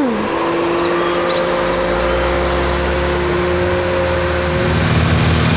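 Machinery sound effect for a cartoon brick factory: a steady two-note hum over a low rumble that builds about two seconds in, turning into a heavier, even mechanical drone near the end.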